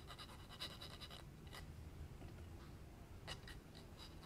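Faint scratching and light ticking of a thin applicator working epoxy into the threads of a 1/4-inch brass machine screw, loading the threads before it is screwed in. The scratches come in a quick cluster in the first second, then only a couple of single ticks.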